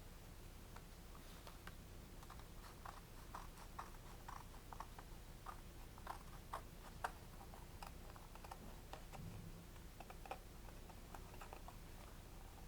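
Scissors cutting out a colored picture card: faint, irregular snipping clicks, several a second, thickest in the middle.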